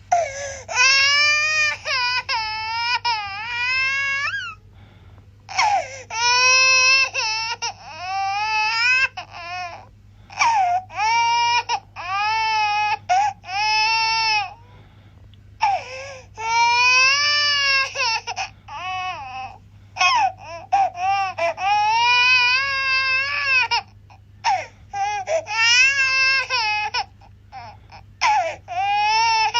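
A baby crying hard in repeated high-pitched wails, each lasting from a second to a few seconds and rising and falling in pitch, with short breaks for breath between them. A faint steady low hum sits underneath.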